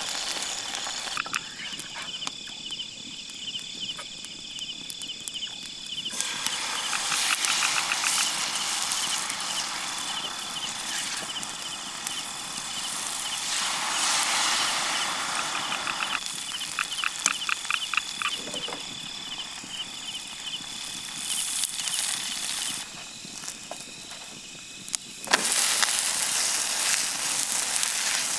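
Battered food frying in a pan of hot oil, sizzling in swells that rise and fall. Behind it runs a steady high insect trill, with bursts of rapid chirping.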